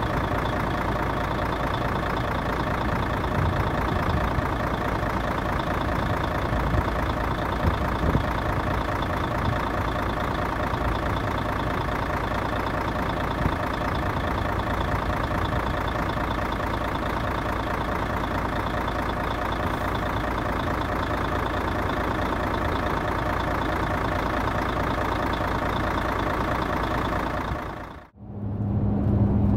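Mercedes-Benz Actros truck's diesel engine idling steadily, fading out near the end.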